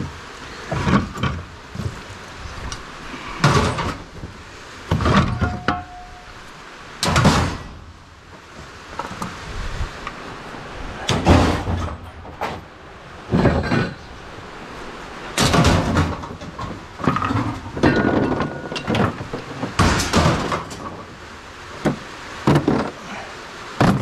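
Scrap steel parts (brake drums, drum-brake shoes and steel pipes) clanking and knocking against one another as they are pulled out of the pile by hand. There are about a dozen loud, irregular clanks, some ringing briefly.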